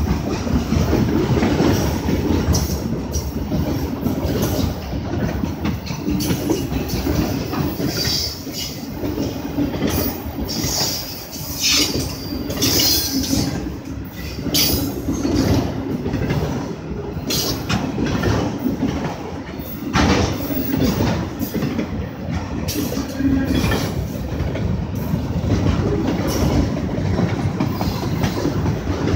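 Freight train of autorack cars rolling past: a steady rumble of steel wheels on rail with repeated clicks over the rail joints, and a few high wheel squeals about a third of the way through.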